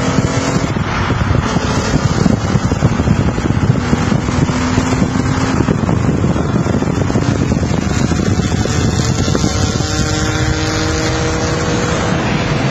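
Car engine accelerating hard, heard from inside the cabin under heavy wind and road noise. The engine note climbs slowly in the second half.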